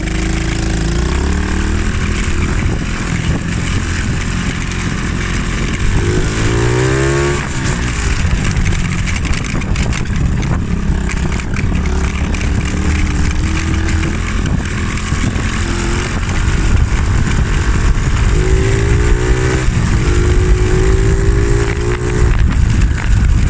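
Small single-cylinder monkey bike engine running under load as it is ridden. It revs up with a rising pitch about six seconds in, and runs at a steadier pitch for a few seconds near the end.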